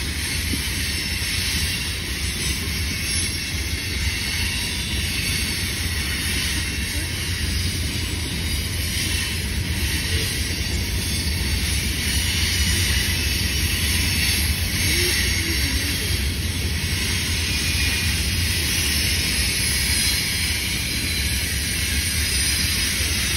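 A freight train of covered hopper cars rolling past: a steady rumble and hiss of wheels on the rails, with no horn or sharp impacts.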